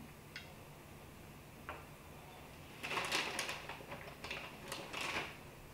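Crackly rustling and light clicks from handling and eating tacos, a dense run of them for about two seconds starting around three seconds in, over a faint steady hum.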